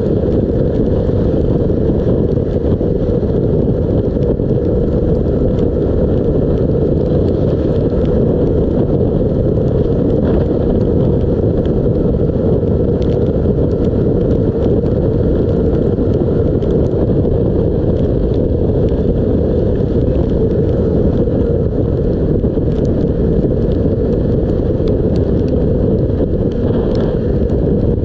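Steady rush of wind buffeting the microphone on a 125cc Honda motorcycle riding at speed, with the engine and tyre noise blended into it rather than standing out.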